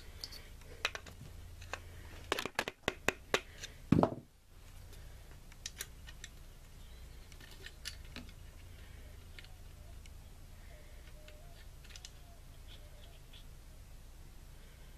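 Sharp metallic clicks and taps from steel T-90 transmission parts being worked with a screwdriver to straighten the reverse gear shaft in the case, with a quick run of them about two to three and a half seconds in and a louder knock at about four seconds, then only a few faint clicks.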